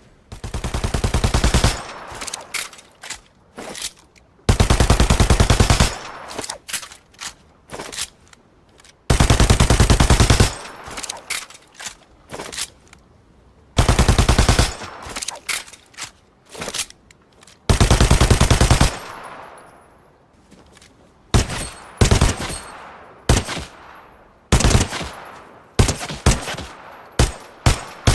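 Machine pistol firing on full auto in five rapid bursts of about a second to a second and a half each, several seconds apart. After that come single shots and very short bursts, about one a second.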